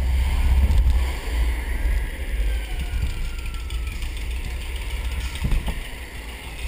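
Wind buffeting the microphone over the rumble of a roller coaster car running along its track, loudest in the first second or so.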